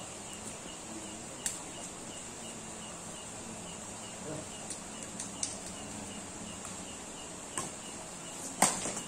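Badminton rackets striking a shuttlecock in a rally: several sharp pops a few seconds apart, the loudest near the end. Under them, steady insect chirping about four times a second.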